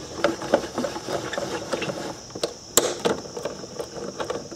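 Socket ratchet clicking irregularly as small 8 mm air-box bolts are backed out, with one sharper click a little past halfway.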